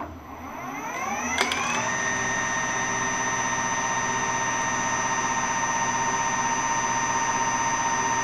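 Metal lathe spindle starting up, a rising whine over the first two seconds with a click along the way, then running at a steady speed with a steady whine while a center drill is fed into the end of a steel bar.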